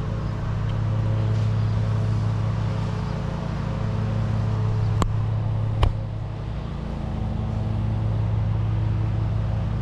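A steady low machine hum, like a running engine, with two sharp clicks about five and six seconds in.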